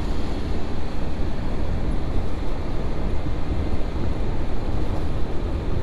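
Steady wind rush on the microphone of a moving motorcycle, over a low rumble of engine and road.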